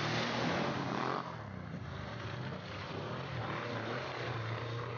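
Side-by-side UTV engine revving as the machine ploughs through deep mud, with a loud splash of mud and water in the first second. After that the engine keeps working hard, its pitch rising and falling.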